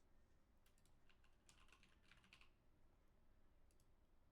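Faint computer keyboard typing: a few quick clusters of keystrokes in the first half, then one more short one near the end, over near silence.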